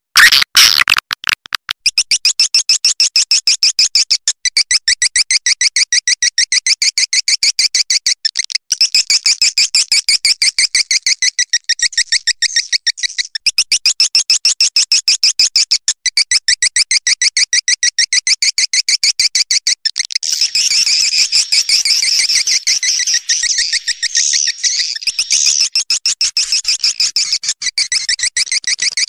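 Swiftlet calling-sound playback of the kind used to lure swiftlets into a nesting house: rapid, evenly repeated high chirps, many a second. About two-thirds of the way through it turns into a denser, overlapping twittering.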